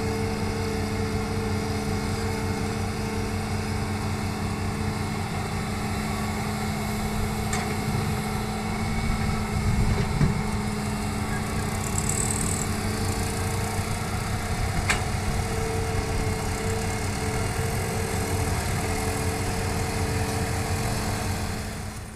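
Diesel engines of a Hitachi excavator and a dump truck running steadily, with a low thud about ten seconds in as a bucketful of soil drops into the truck's steel bed. Two short sharp knocks, one before and one after the thud.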